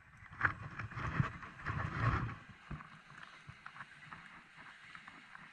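Water sloshing and lapping close to a wading angler, with irregular splashy bursts in the first two seconds that settle into a lower, steady wash.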